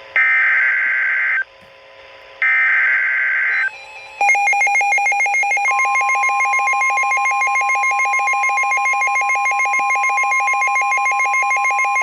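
NOAA Weather Radio SAME alert header: two short bursts of shrill warbling data screech, about a second each and a second apart, which close the encoded header of a new warning. About four seconds in, a fast electronic beeping starts, and a second and a half later the long steady Weather Radio warning alarm tone joins it, announcing the flash flood warning that follows.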